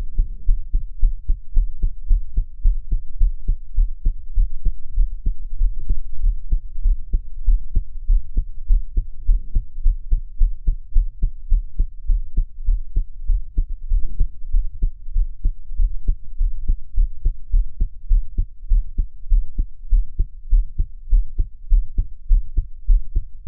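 A young woman's heartbeat recorded close up while she is crying: a steady run of low, regular beats, with a soft swish now and then between them.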